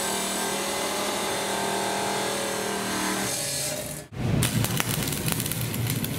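Abrasive cut-off saw running and grinding through steel pipe, a steady motor tone under the cutting noise. About four seconds in it gives way to the crackling buzz of an arc welder striking and running a bead.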